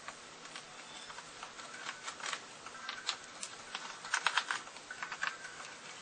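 Irregular light clicks, taps and scrapes of fingers working on the plastic underside of a Sony Vaio laptop around its hard drive cover, with a quick run of louder clicks about four seconds in.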